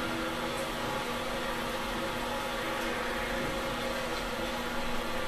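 Steady hum with hiss: room tone with no distinct event.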